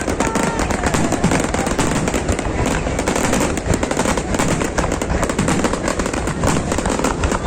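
Fireworks going off in a dense, continuous crackle of many rapid small bangs.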